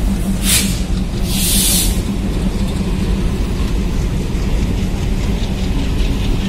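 Indian Railways passenger coaches rolling past at close range: a steady, loud rumble of wheels on rail with a constant low hum. Two short bursts of hissing air come in the first two seconds.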